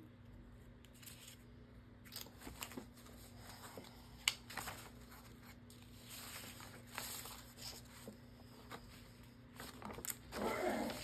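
Paper and card being handled: intermittent rustling and light taps, with one sharp click about four seconds in, over a faint steady hum.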